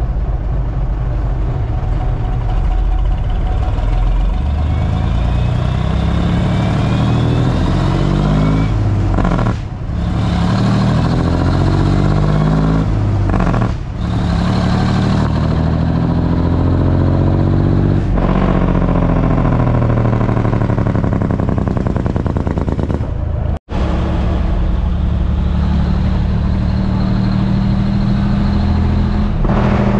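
Brockway 260 truck's diesel engine, heard from inside the cab, pulling away and working up through the gears. The engine note climbs with each gear, with short dips at the shifts about 10 and 14 seconds in.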